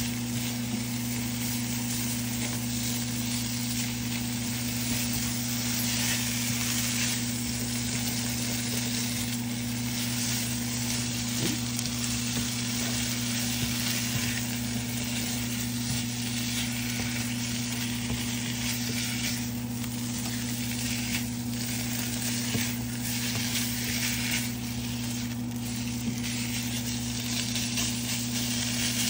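Sliced deli chicken and ham with shredded cheese sizzling steadily in a frying pan while being stirred and pushed around with a utensil. A steady low hum runs underneath.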